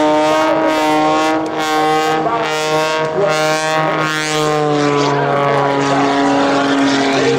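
Oracle Challenger III aerobatic biplane's piston engine and propeller running at high power in flight, a steady drone whose pitch sinks slightly in the second half.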